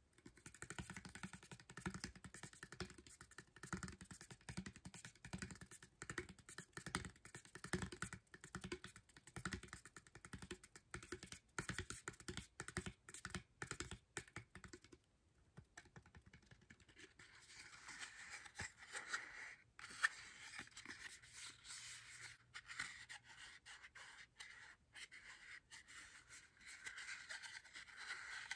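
Fingernails tapping rapidly on a small cardboard box for about the first half, then, after a brief pause, scratching and rubbing across its surface with scattered taps.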